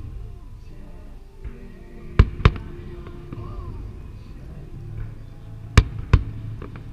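Fireworks shells bursting: two pairs of sharp bangs, about two seconds in and again near the end, over the fireworks show's soundtrack music.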